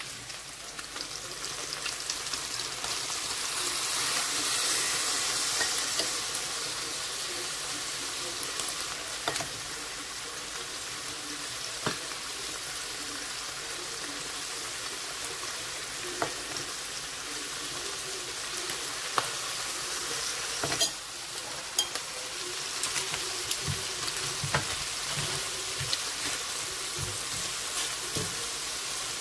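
Chicken pieces sizzling in a Saladmaster stainless-steel skillet, frying without added oil in the fat and juices rendered from the chicken itself. The sizzle swells a few seconds in and then holds steady, over scattered clicks of metal tongs against the pan as the pieces are turned.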